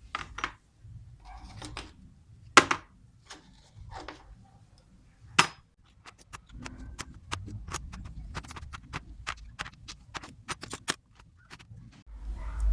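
Sharp metal clicks and knocks from the old steel tool box being handled and worked on: a few separate knocks, two of them louder, then a quick run of light taps, about four a second.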